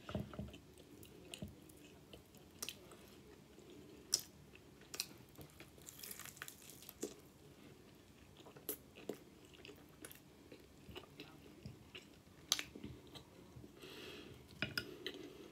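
Close-up chewing and biting on sauced fried chicken wings: faint chews with many short, scattered mouth clicks.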